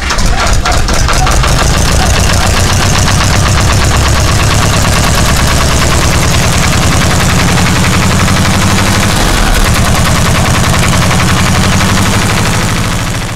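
Ursus farm tractor's diesel engine running steadily at idle, with an even knocking beat. It fades out at the very end.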